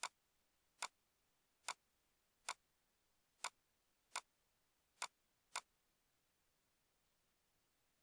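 Eight sharp single clicks of a computer mouse button, a little under a second apart.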